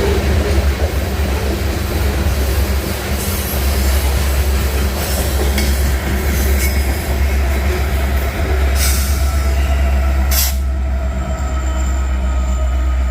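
Union Pacific train rolling past: a steady heavy rumble of railcars and wheels on rail, with two sharp clanks near the end.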